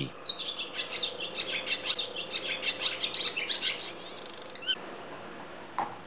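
Barn swallows twittering: a rapid run of short, high chirps that thins out after about four seconds.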